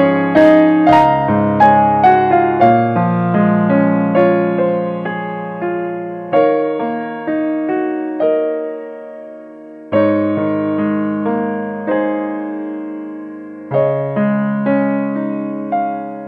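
Background piano music: struck notes and chords that ring and fade, in phrases that start afresh about every four seconds.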